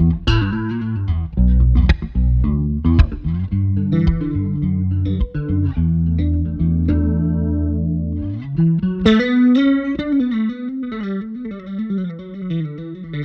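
Sandberg California TT4 electric bass played through a DOD FX63 Deep Freeze Bass Chorus pedal with the chorus switched on, keeping the low end while adding a shimmering chorus. First come low, groove-based notes with sharp percussive attacks. About eight seconds in, a slide up leads into a higher melodic line.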